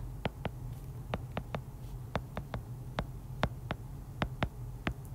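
Stylus tip tapping and clicking on a tablet's glass screen while handwriting, in irregular sharp taps a few per second, over a steady low hum.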